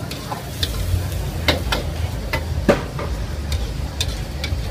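Metal spatula and ladle clanking against a wok as noodles are stir-fried, with food sizzling. There are about eight sharp, irregular clanks over a steady low rumble.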